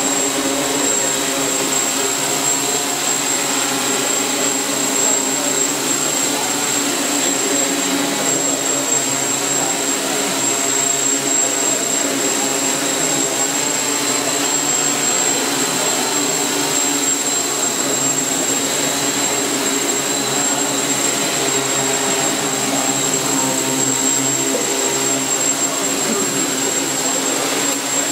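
Hexacopter's six electric rotors running steadily while hovering: an even buzz of several blended pitches with a high, thin whine above it.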